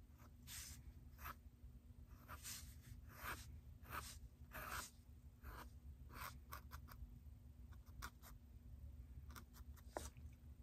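Sharpie marker drawing on sketchbook paper: faint, irregular short strokes of the felt tip rubbing across the page.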